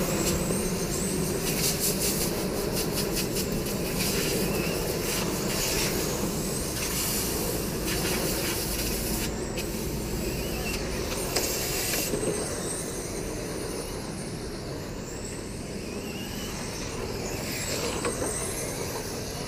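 Radio-controlled late model race cars running laps on a dirt oval track. A high whine rises and falls as the cars pass, over a steady noise.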